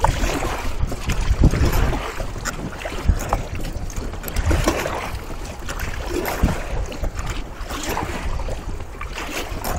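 Wind buffeting the microphone over water sloshing against an inflatable boat at sea, swelling and easing every second or so. No outboard motor is running.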